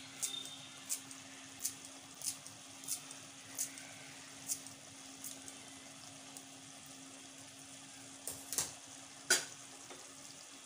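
Thick chicken karahi gravy simmering in a pan, its bubbles popping with soft ticks about every half second to second over a steady low hum. A few louder clicks come near the end.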